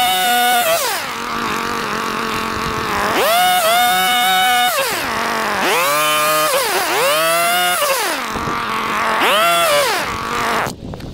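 Echo HC-152 hedge trimmer's small two-stroke engine running, its throttle opened and eased off again and again as it cuts a shrub: the pitch climbs to full revs about four times and falls back between. The engine sound drops away abruptly near the end.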